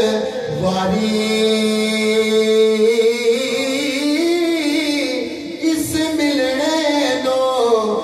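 A man singing a naat into a microphone, holding long drawn-out notes that bend up and down.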